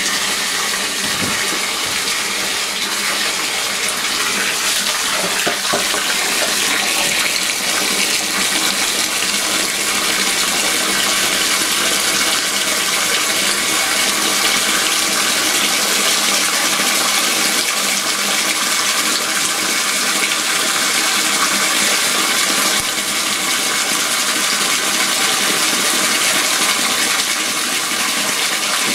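Water from a garden hose pouring steadily into a plastic storage tote, splashing as the tote fills.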